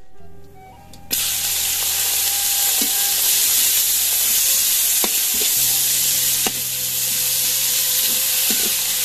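Small dried fish frying in hot oil in a steel wok, sizzling with a loud, even hiss that starts suddenly about a second in. A metal spatula stirs them, with a few sharp clicks against the wok.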